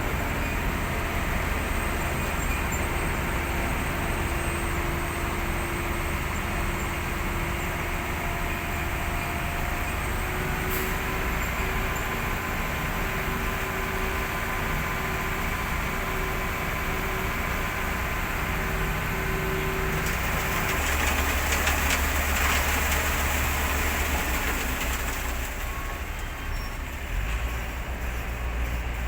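Diesel engine of heavy construction machinery running steadily with a low rumble and a faint hum, growing somewhat louder about two-thirds of the way through.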